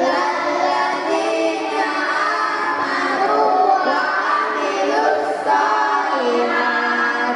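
Group of children singing together, holding long melodic notes.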